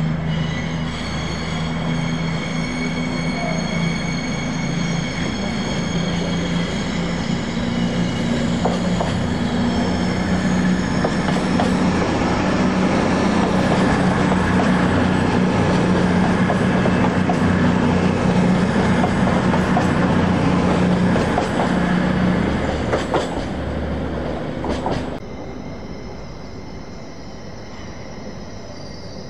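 CrossCountry Voyager diesel multiple unit running along the platform, its underfloor diesel engines droning steadily, with wheels clicking over rail joints as it passes. About 25 seconds in, the sound drops suddenly to a quieter one: an LNER Azuma running in with a high-pitched wheel squeal.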